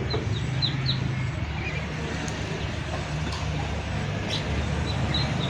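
Small caged songbirds giving short high chirps, a few near the start and a couple more near the end, over a steady low hum.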